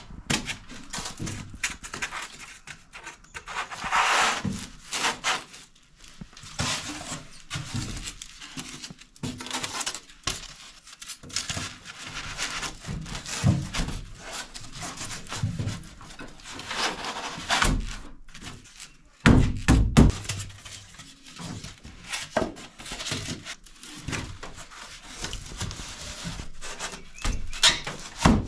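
Rigid expanded-polystyrene foam insulation boards being pushed into place against a school bus's sheet-metal ceiling and ribs: scraping and rubbing of foam on metal, broken by irregular thunks and knocks. The loudest knocks come about two-thirds of the way through.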